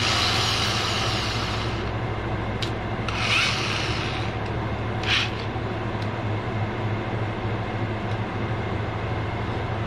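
Brief rasping, rubbing noises and a few sharp clicks from a corded drill's keyless chuck being twisted by hand to grip a countersink cage, over a steady low hum. The rasping comes right at the start and again about three seconds in.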